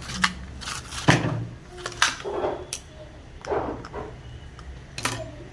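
Small hard parts and tools being handled during a chainsaw starter repair: a handful of sharp clicks and knocks with two short scraping sounds in the middle, over a low steady hum.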